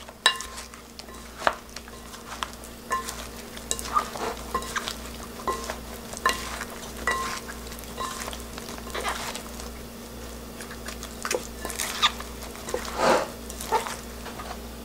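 Batter-coated eggplant and onion chunks being tossed and stirred in a glass bowl with wooden utensils: wet squishing of the thick batter, with irregular clinks, about one or two a second, as the wood strikes the glass, some ringing briefly.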